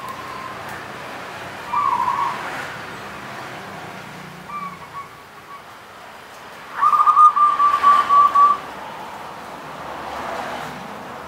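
Caged zebra dove (perkutut) cooing in song: a few soft coos early on, then, past the middle, the loudest part, a rapid run of staccato warbling coos lasting just under two seconds.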